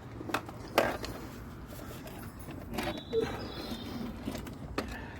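Several sharp clicks and knocks at irregular intervals, the sound of equipment being handled, with a brief faint high tone about three seconds in.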